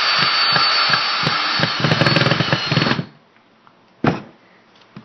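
Battery-powered drill running steadily with a high motor whine while driving a screw into wood, with low knocking underneath that grows thicker toward the end. The motor stops suddenly about three seconds in, and a single knock follows about a second later.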